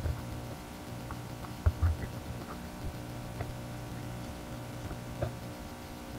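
Muffled underwater sound picked up inside a camera housing: a steady low hum with scattered faint clicks, and two dull knocks a little under two seconds in.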